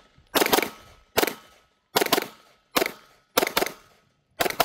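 Archon Type B 9mm pistol being fired: about six shots at a steady pace, roughly one every three-quarters of a second, each with a short echo trailing off.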